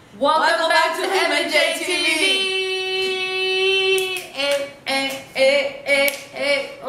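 A woman singing: a few gliding phrases, one long held note, then a run of short, clipped syllables near the end.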